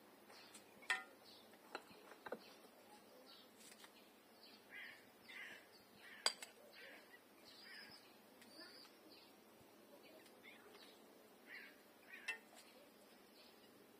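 Faint birdsong of short chirps, with a few sharp clinks of a spoon on the kazan and plate as food is dished out.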